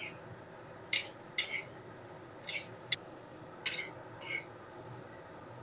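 Metal spatula scraping and clinking against an aluminium kadai as potatoes and brinjal are stir-fried: a series of short, irregular scrapes over a faint steady hiss.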